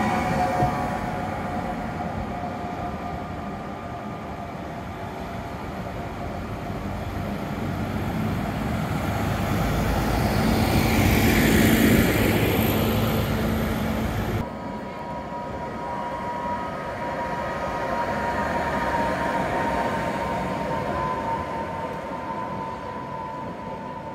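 Tatra KT4D tram running past on street track, its motor whine fading as it moves away. The noise of another tram then swells to a peak about twelve seconds in and cuts off abruptly. After that comes a steady whine from a tram standing further off.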